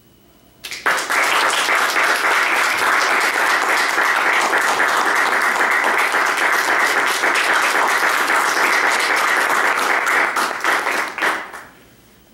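Audience applauding at the end of a solo piano piece. The clapping starts suddenly about a second in, holds steady, and dies away with a few last claps near the end.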